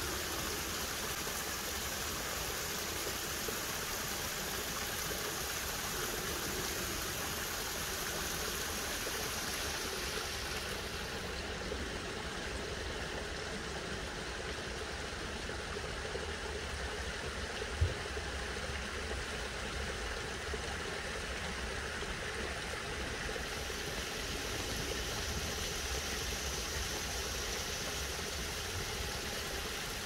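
Steady rush and trickle of a small stone-lined creek cascading over rock ledges into a pond, with a low rumble underneath. A single brief thump about eighteen seconds in.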